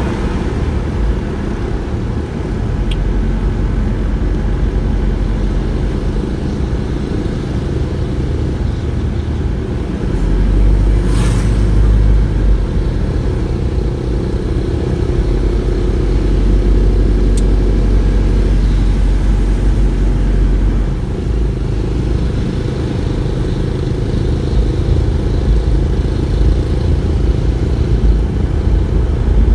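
Steady low road and engine rumble of a moving car, heard from inside the cabin. A brief rushing sound comes about eleven seconds in.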